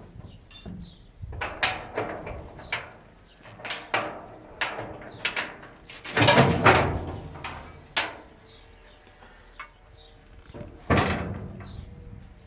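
A run of irregular knocks and clattering from hand work on an excavator under repair, with a louder burst of clatter about halfway and another sharp knock near the end.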